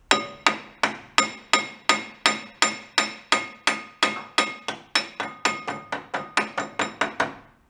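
Hand hammer striking a steel chain sprocket hub on a shaft in a steady run of blows, about three a second, each with a ringing metallic note. The blows get slightly softer near the end.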